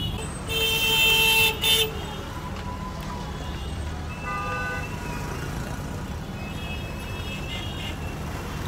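Street traffic rumbling, with a car horn sounding loudly for about a second half a second in, followed by a short second toot.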